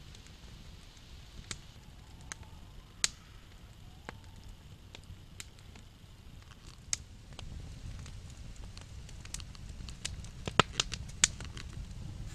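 Wood campfire crackling, with scattered sharp pops over a low steady rush of flame; the rush grows louder after about seven seconds and the pops come thicker and louder near the end.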